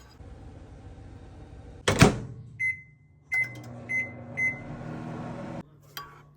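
Microwave oven door shut with a loud thud about two seconds in, then four short beeps from the keypad as the oven is set. The oven starts running with a steady hum that cuts off suddenly near the end, followed by a couple of clicks.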